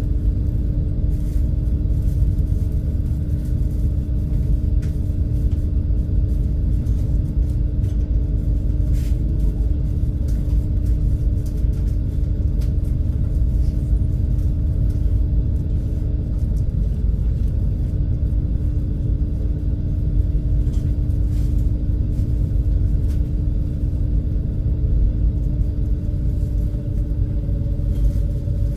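Engines of the Super Jet high-speed passenger ferry running steadily under way, a constant deep rumble with a steady droning hum.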